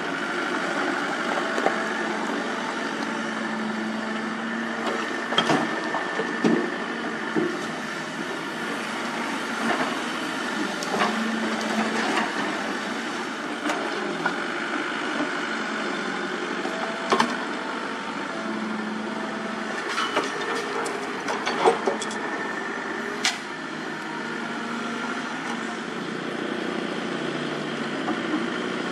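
Komatsu hydraulic excavator's diesel engine running, its note swelling and easing at intervals as the hydraulics work. Several sharp knocks and clatters of rock and rubble against the steel bucket, the loudest near the end.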